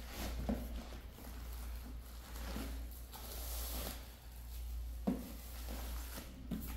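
Boxed items being lifted out of a cardboard shipping carton packed with bubble wrap: rustling of plastic wrap and cardboard, with a few light knocks of box on cardboard, the strongest about five seconds in. A steady low hum runs underneath.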